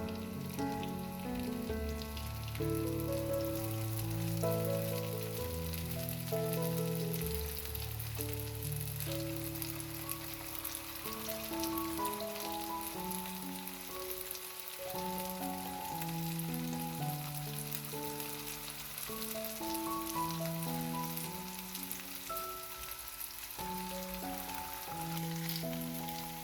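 Potato-cheese sticks deep-frying in hot vegetable oil, with steady sizzling and crackling throughout. A melodic background music track plays alongside.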